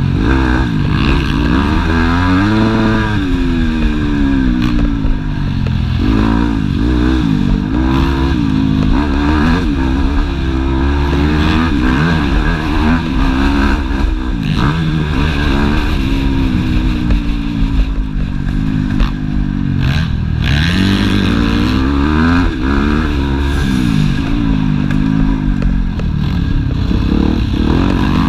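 Yamaha YZ250F's 250 cc four-stroke single-cylinder motocross engine heard from on board, its revs climbing and dropping again and again under throttle and gear changes. Occasional short knocks and clatter come through as the bike rides the rough track.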